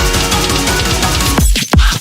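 Loud electronic background music with a heavy beat, with falling bass sweeps and a brief drop out near the end.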